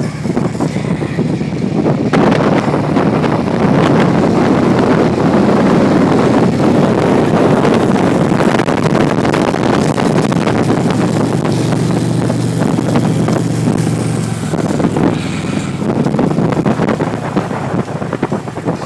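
Motorcycle running along at road speed, its engine mixed with heavy wind buffeting on the microphone; a steady engine drone stands out for a few seconds about two-thirds of the way through.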